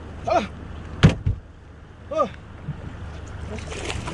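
A hooked fish is brought to the landing net beside a small fishing boat. About a second in there is a hard thump against the boat. Near the end the fish splashes at the surface as it is netted, with two short cries falling in pitch along the way.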